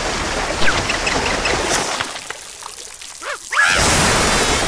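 Cartoon high-pressure water jet spraying in a steady gush, cutting out about two seconds in and starting again louder about a second before the end, with short squeaky, quacking cartoon character noises in between.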